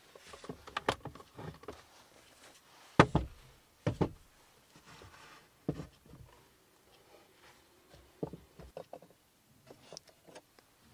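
Knocks and clunks of a small electric pot, its lid and a tabletop cooker being picked up, moved and set down on a wooden counter, with handling rustle between. The loudest knock comes about three seconds in, with several more through the rest.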